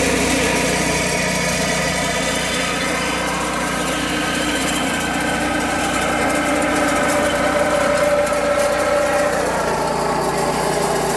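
Walk-behind power reaper's small engine running steadily under load as the machine cuts standing paddy.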